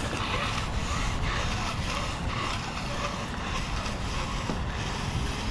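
Wind buffeting the microphone: a steady rushing rumble with no distinct events.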